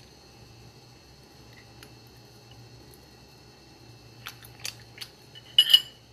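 A metal fork on a plate: a few light clicks, then a louder clatter near the end as the fork is set down, over a low steady hum. Faint eating sounds are mixed in.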